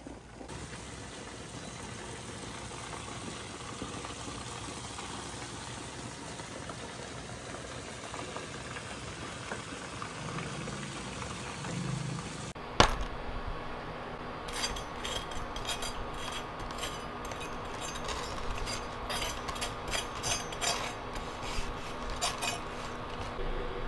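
Freshly fried, batter-coated chicken sizzling as it rests, a steady hiss. A little past halfway a sharp click, then a knife cutting through the crisp fried crust in a quick run of crackling crunches.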